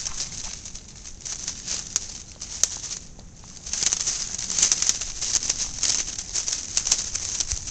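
Dry twigs and dead leaves crackling and rustling as two Jack Russell terriers push and dig through a brush pile, with a brief quieter lull about three seconds in.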